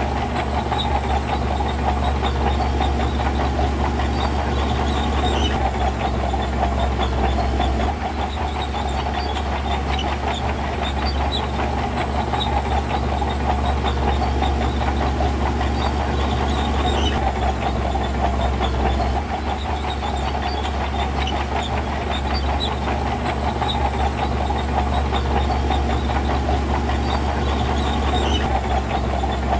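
Heavy diesel earthmoving machinery at work: a diesel engine running steadily under load, with scattered light clicks and clatter over it.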